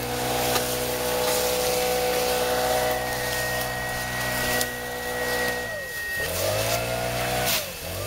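STIHL BR 600 backpack blower's four-stroke engine running at high throttle with a rush of air from the nozzle. About six seconds in, the engine pitch drops sharply and then climbs back up as the throttle is eased off and opened again.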